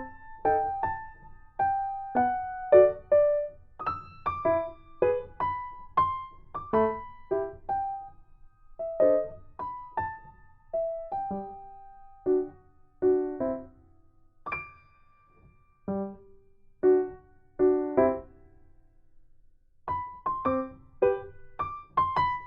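Background piano music: a gentle melody of single struck notes that each fade away, breaking off for a moment near the end before it goes on.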